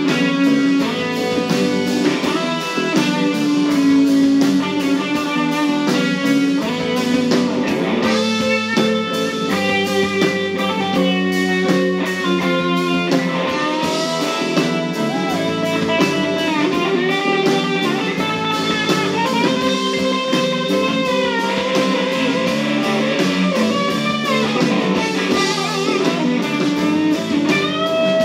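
Live blues-rock band playing an instrumental passage: an electric guitar carries the lead with sustained, bending notes over bass guitar, drum kit and keyboard.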